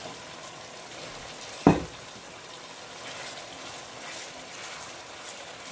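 Lamb kidney curry simmering in a pan as chopped tomato is tipped in and stirred with a wooden spoon. A single sharp knock about a second and a half in.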